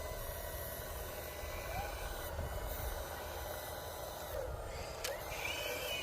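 Radio-controlled construction trucks running, a steady mechanical whir over a low rumble, with a couple of short chirps near the end.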